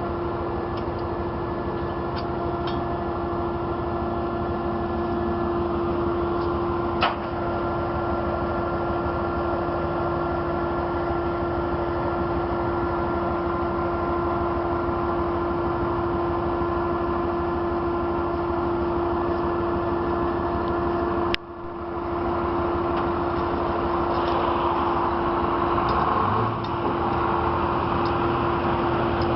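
A tow truck's engine running at a steady speed, with a constant hum and a single click about seven seconds in. The sound breaks off suddenly about 21 seconds in and resumes slightly noisier.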